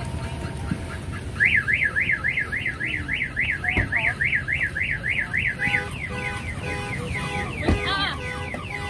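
Car alarm sounding: a fast up-and-down warbling tone, about three to four sweeps a second, that starts about a second and a half in and switches to a different stepped, repeating tone pattern about two-thirds of the way through. A single thump is heard near the end.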